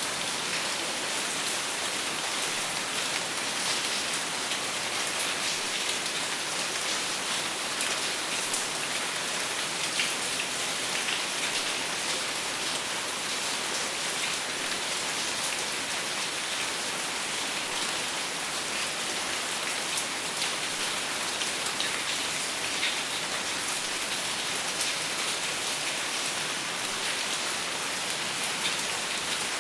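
Steady rain falling, an even hiss with many small drop ticks and no thunder.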